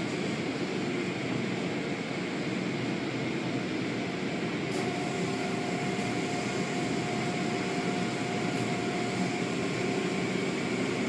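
Steady mechanical drone with a rushing noise, joined about halfway through by a faint steady whine.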